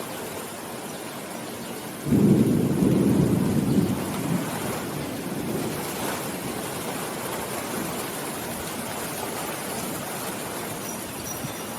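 Steady rain falling, with a thunder rumble breaking in suddenly about two seconds in, loudest for a couple of seconds and then slowly dying away under the rain.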